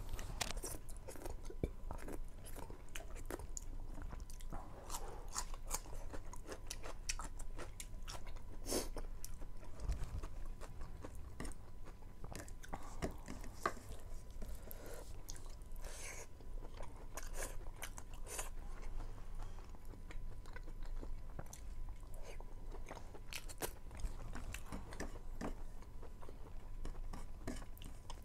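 A person chewing mouthfuls of rice and meat eaten by hand, with many small, irregular wet clicks and smacks of the mouth.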